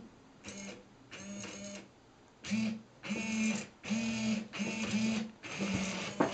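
Two hobby RC servos whirring in short, start-stop bursts, about seven of them, as they swing the PVC fountain nozzle back and forth on two axes. A sharp click comes just before the end.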